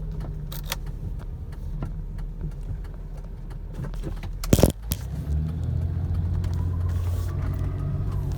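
Car with a low steady hum and scattered sharp clicks. A loud clunk comes about halfway through, and after it a steadier, stronger low drone sets in.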